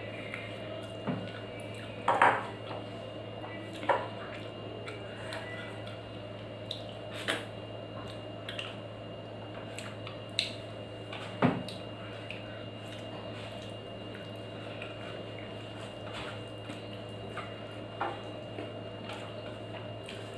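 Fingers mixing and scooping rice on a stainless steel plate, with a few sharp clinks of fingers and food against the metal scattered through, over a steady background hum.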